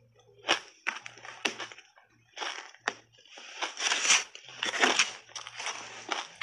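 Crunchy shaved ice coated in matcha powder being bitten and chewed close to a lapel microphone: a few sharp crunches in the first half, then denser, longer crunching.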